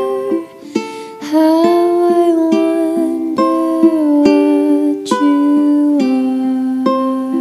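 Background music: a light tune on a plucked string instrument.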